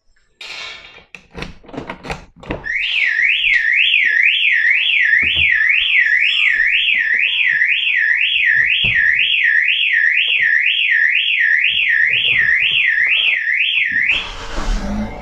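Car alarm siren wailing up and down about twice a second, set off by opening the car with the mechanical key while the remote fob is not working; a few knocks and clicks come just before it. Near the end the siren cuts off suddenly as the push-start button is pressed with the brake held, and the engine starts.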